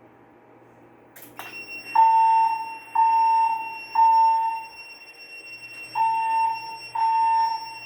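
Fire alarm sounders going off. After a click, a steady high tone starts about a second and a half in. Lower beeps join it about once a second: three beeps, a pause, then two more, the temporal-three evacuation pattern.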